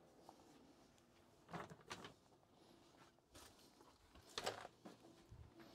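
Near silence broken by a few faint, brief knocks and rustles, about one and a half seconds in and again, slightly louder, about four and a half seconds in.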